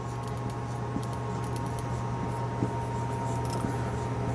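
Felt-tip marker squeaking and scratching across a paper flip-chart pad as a word is written in short strokes, over a steady low electrical hum.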